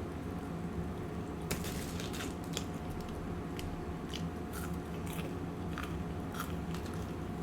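Close-miked chewing of a Sonic burger with crisp lettuce: a dozen or so irregular, crisp crunches over a steady low hum.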